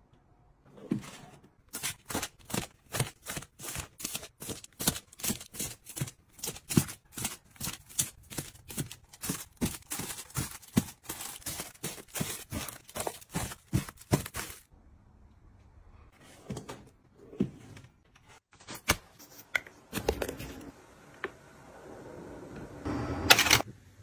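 Quick run of light taps and clicks, about three a second, as packaged household goods are set down one after another into organizers and onto a shelf. The clicks stop about 14 seconds in. A few scattered knocks follow, then a louder rustle near the end.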